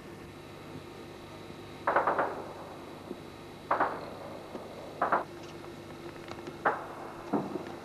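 Footsteps crunching on rubble and broken glass, five or six irregular steps with the first about two seconds in the loudest, over a steady faint hum.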